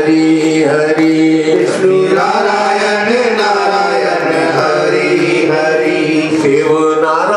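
Hindu devotional bhajan: a sung, chant-like melody with long held notes that slide between pitches, over steady sustained tones.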